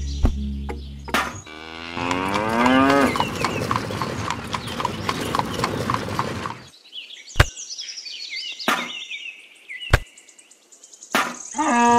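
Cow mooing, its call rising in pitch, followed by a run of even clicking. High bird chirps come in the middle, and another moo begins near the end.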